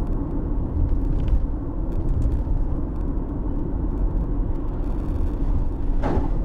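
A moving car heard from inside the cabin: a steady low rumble of engine and tyres on the road.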